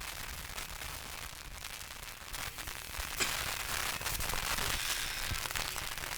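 Steady hiss of recording static with scattered crackles and clicks, a few sharper clicks about halfway through.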